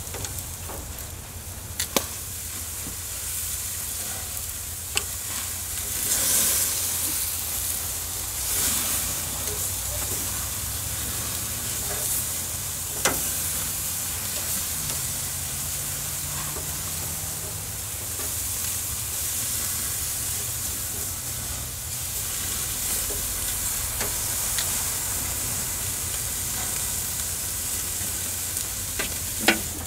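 Beef tenderloins and sliced vegetables sizzling on a gas grill's grate: a steady hiss that swells now and then, with a few sharp clicks.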